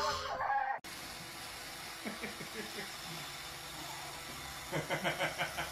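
A toddler's crying wail breaks off under a second in. Then a robot vacuum cleaner runs with a steady hiss, while a baby makes a few short babbling sounds and a quick run of laughter comes near the end.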